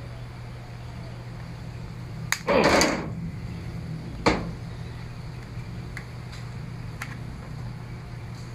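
Plastic back cover of a Samsung Galaxy Tab 4 being pried off the tablet: a sharp click and a brief loud rasp of the retaining clips letting go about two and a half seconds in, another snap just after four seconds, then a few faint ticks.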